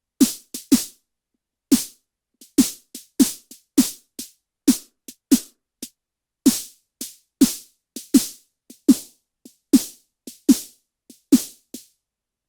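Synthesized snare drum, built from scratch in Ableton Live's Operator synth, played as about twenty short hits in an uneven pattern, some softer than others. Each hit is a brief low thump with a hissy crack on top.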